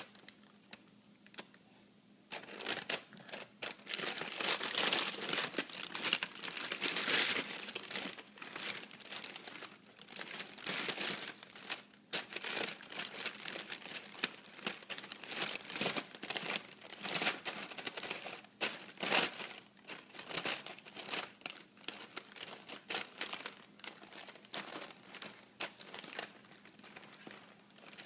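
A baby's hands grabbing and pawing at a clear plastic bag of tortilla chips, the bag crinkling in irregular bursts that start about two seconds in.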